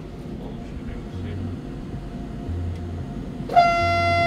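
A Sapsan high-speed train's horn sounds once for about a second, a loud steady tone that starts and stops sharply near the end. Before it, a low hum pulses on and off about every second and a half.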